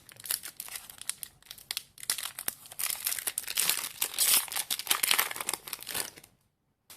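Foil wrapper of a Pokémon TCG booster pack crinkling and tearing as it is opened by hand, with many sharp crackles. It stops about six seconds in.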